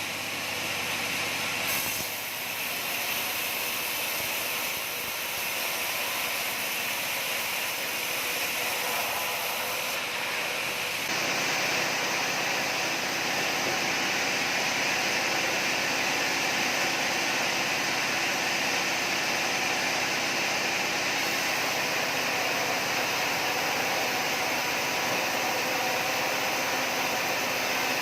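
Sawmill saw running steadily, growing louder and fuller about eleven seconds in.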